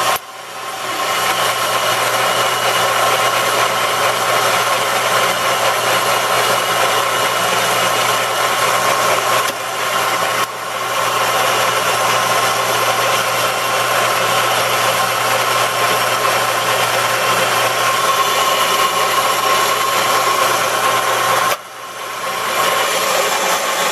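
Enco 9 x 20 bench lathe running in reverse, its motor and gear train making a steady whine. The sound drops and builds back up just after the start and again a couple of seconds before the end.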